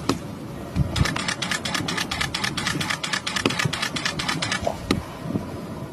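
Rapid, even mechanical clicking, about ten clicks a second, that stops about a second before the end.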